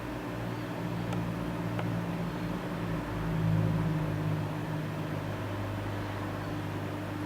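A steady low mechanical hum, like a small motor or fan running, that drops slightly in pitch and briefly swells about three and a half seconds in.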